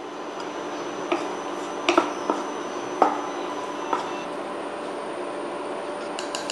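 Raisins frying in hot ghee in a non-stick pan, a steady sizzle, with a wooden spatula knocking and scraping against the pan several times in the first four seconds.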